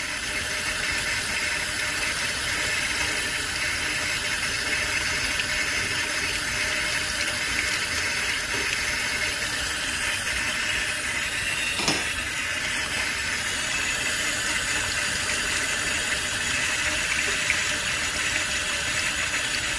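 Kitchen faucet running steadily, its stream splashing into a stainless steel sink and through a metal nitro RC exhaust pipe being rinsed under it. One light knock about twelve seconds in.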